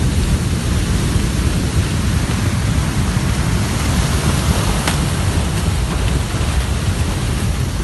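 Mudflow of water, mud, logs and boulders rushing down a river channel: a loud, steady rushing noise with a heavy low rumble.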